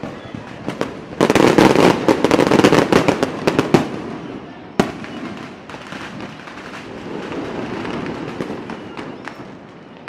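Fireworks going off: a dense run of rapid crackling pops for a few seconds, a single sharp bang about five seconds in, then scattered pops over a rumble that slowly fades.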